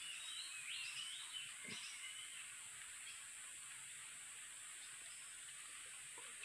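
A small bird sings short warbling, gliding phrases during the first couple of seconds, over a steady high-pitched insect drone of the forest.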